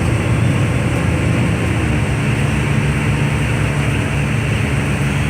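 Steady engine and road noise of a moving tour vehicle, heard from on board, with a low hum.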